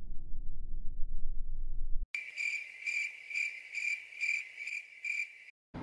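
Low-pitched rumbling noise for about two seconds. It cuts off suddenly, giving way to crickets chirping at about two chirps a second on one steady high pitch, which stop abruptly near the end.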